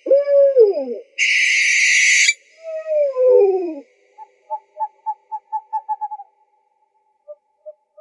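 Owl calls: a falling wail right at the start, a harsh hissing screech lasting about a second, and a second falling wail. These are followed by a rapid run of short hooting notes, about five a second, and a few scattered notes near the end.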